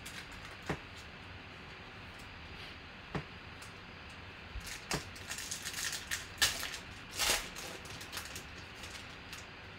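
A few light clicks of trading cards being handled, then the foil wrapper of a football-card pack crinkling and tearing as it is ripped open, loudest about six to seven and a half seconds in.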